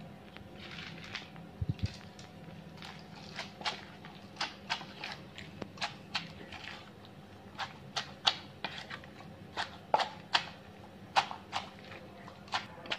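Wooden pestle pounding papaya salad and peanuts in a mortar: irregular sharp knocks, about one or two a second, louder in the second half, over a faint steady hum.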